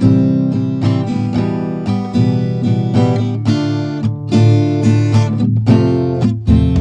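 Background music led by acoustic guitar, plucked and strummed notes struck about twice a second.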